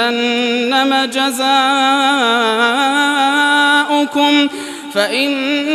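Male Quran reciter's voice chanting in melodic tajweed style, holding long ornamented notes with pitch turns. There is a brief pause for breath about four seconds in before the voice rises again.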